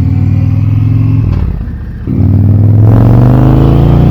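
V-twin engine of a 2020 Indian Challenger Limited motorcycle running. It eases off briefly a little over a second in, then picks up sharply about two seconds in and rises in pitch as it accelerates.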